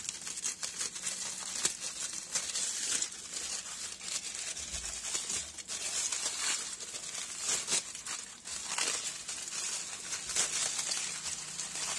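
Aluminium foil wrapping crinkling and crackling as it is unfolded and peeled open by hand, a continuous stream of small crackles.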